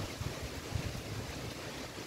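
Strong dust-storm wind blowing, with irregular gusts buffeting the microphone.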